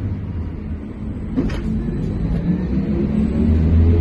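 Trolza-5275.06 Optima trolleybus in motion, heard from inside: a steady low rumble with a hum from the electric drive, and a single sharp knock about a second and a half in.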